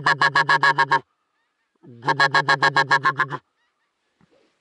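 Goose honking in two rapid runs of evenly spaced honks, each lasting about a second and a half, with silence between.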